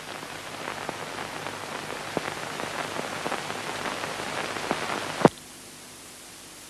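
Crackling hiss of an old optical film soundtrack, dotted with small clicks, ending in a sharp pop about five seconds in, after which only a steady, quieter hiss remains.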